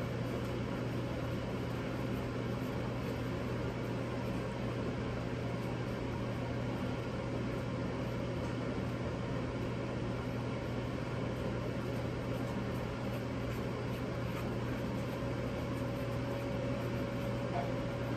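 Steady hum and whir of a running kitchen appliance or fan, unchanging throughout.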